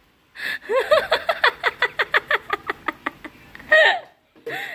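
Hard, high-pitched laughter: a long unbroken run of quick 'ha-ha' bursts, about eight or nine a second, swelling to a louder peak near the end.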